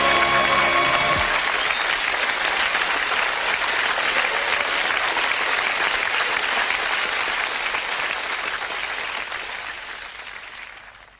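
Studio audience applause over the end of the closing theme music. The music stops about a second in, and the applause carries on and fades out near the end.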